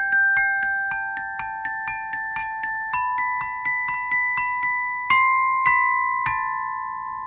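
Glockenspiel struck with a mallet: a quick run of bright ringing notes, about three or four a second, slowly stepping up in pitch, then three louder strikes about half a second apart that are left to ring out.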